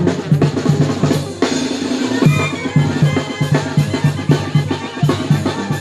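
Live band music led by drums: a snare drum and bass drum keep a steady dance beat under a repeating low bass line.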